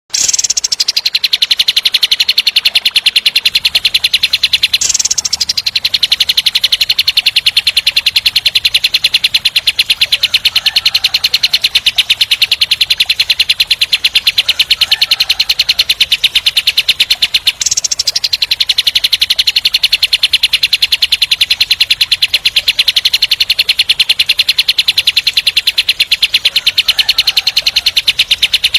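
Kapas tembak songbird singing a long, very fast rattling trill, its notes so close together that they run into one continuous high-pitched roll. The roll breaks off briefly twice, about 5 seconds and about 18 seconds in, then carries straight on.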